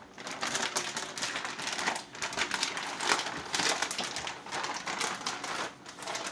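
Wood fire of oak and wild cherry crackling and popping in the grill's firebox, a dense irregular run of small snaps over a steady hiss.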